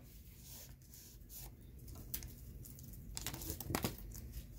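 Faint crinkling and rustling of a foil booster-pack wrapper being handled as the cards are taken out, with a couple of soft handling noises a little past the middle.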